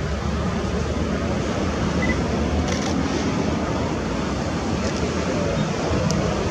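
Airbus A321neo's turbofan engines at taxi power: a steady, even rumble with a hiss over it.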